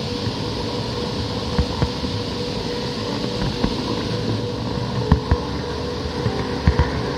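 A model train running along its track with a steady motor and wheel hum, and short clicks in close pairs three times as its wheels pass over rail joints.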